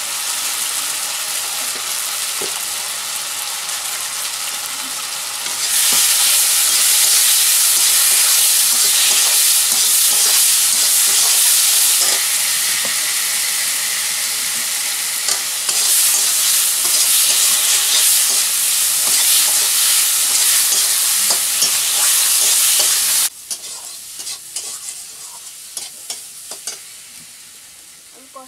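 Potato pieces and spice paste frying in oil in a metal kadai, sizzling steadily as a metal spatula stirs and scrapes them around the pan. The sizzle grows louder about six seconds in and stops abruptly near the end, leaving quieter sounds with a few light knocks.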